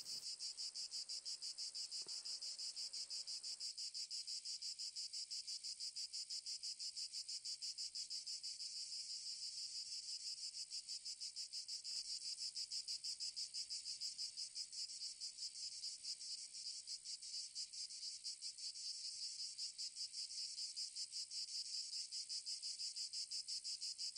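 Chirring insects in steady, rapidly pulsing song, high-pitched and unbroken.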